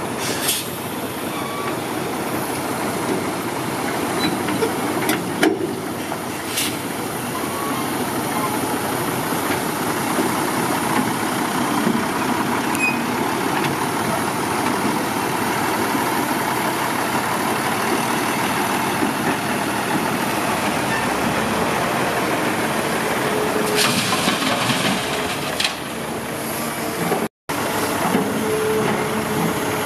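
Heavy dump truck running, a steady engine and road noise, with a short hiss about three-quarters of the way through.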